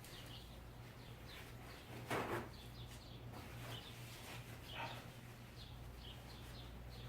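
Faint birds chirping over a steady low hum, with a short handling noise about two seconds in and another near five seconds.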